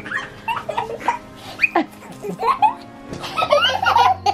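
A toddler laughing as he is tickled, over background music.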